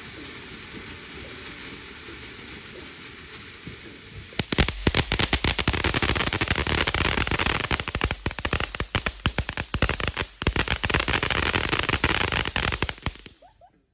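Consumer fireworks going off: a steady hiss for about four seconds, then a rapid, dense string of loud crackling bangs for about nine seconds that stops suddenly.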